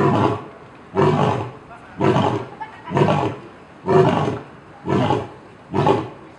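A big cat roaring in a regular series of calls, about one a second, each lasting roughly half a second.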